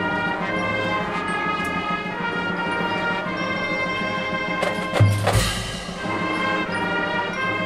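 High school marching band playing, brass-led with sustained chords. About five seconds in, a crash with ringing and a heavy low drum hit is the loudest moment, typical of cymbals and bass drum marking a hit.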